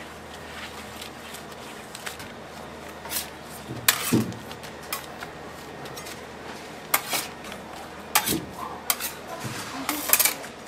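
A mass of candy dough being folded and pressed by gloved hands on a stainless steel table, with several sharp knocks and clatters on the steel from about four seconds in.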